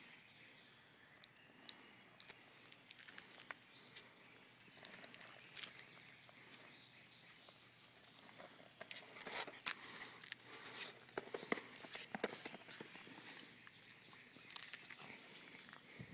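Faint, scattered clicks and scuffs of a Scottish terrier's paws moving about on concrete, busier for a few seconds around the middle.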